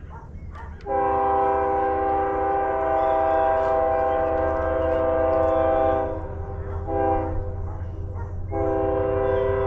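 Nathan AirChime K5HL five-chime locomotive air horn sounding a steady chord: a long blast starting about a second in, a short blast around seven seconds, then another long blast near the end, over a low steady rumble.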